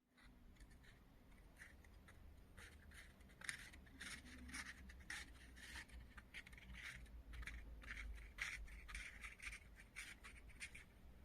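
Faint scratching and scraping handwork: short, irregular strokes beginning about three seconds in, over a low steady hum.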